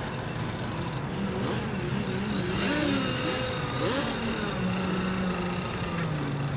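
Several radio-controlled racing boat engines running at once, their pitches rising and falling as they rev and ease off.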